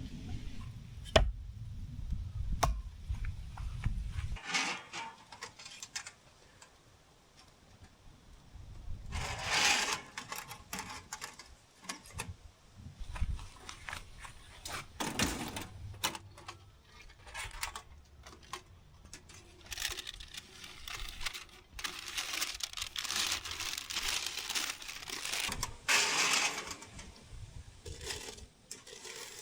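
Objects being handled: a few sharp clicks and clinks, then irregular bursts of rustling and clattering.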